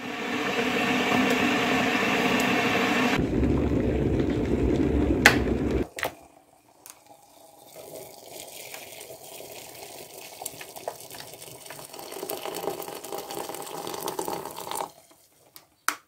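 Tap water pouring into an empty electric kettle: a loud, full stream for the first six seconds, then a quieter, thinner trickle. A sharp click near the end.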